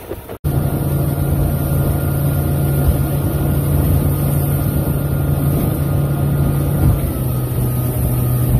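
Boat's outboard motor running at a steady pitch, a low even hum that cuts in abruptly about half a second in, with hiss of wind and water over it.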